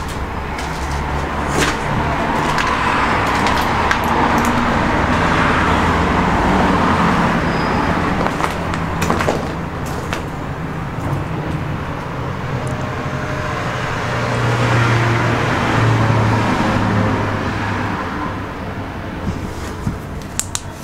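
Road traffic rumbling, swelling and easing twice, with a few sharp knocks.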